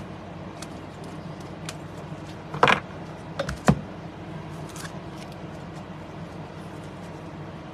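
A hand handling trading cards and plastic card holders on a desk: a short scraping clatter about two and a half seconds in, then a couple of sharp clicks about a second later, over a steady low hum.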